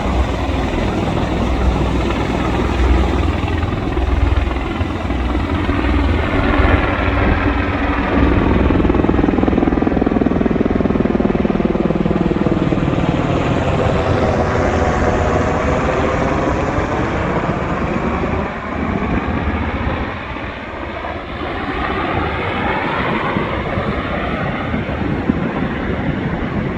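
Black Hawk helicopters flying low past and overhead. The rotor and engine sound grows to its loudest about midway, with a whooshing sweep that falls and then rises in pitch as they pass, and eases off after.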